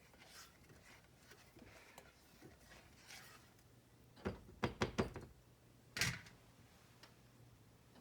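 A spoon knocking lightly against a saucepan while butter and brown sugar are stirred over the heat: a quick run of about four knocks a little past four seconds in, then one more a second later.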